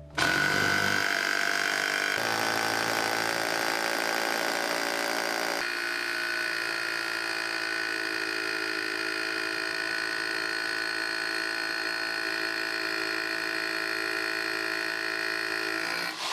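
Bosch GBH 3-28 DFR SDS Plus rotary hammer drill switched on and running at a steady speed. Its tone changes about two seconds in and again after about five and a half seconds.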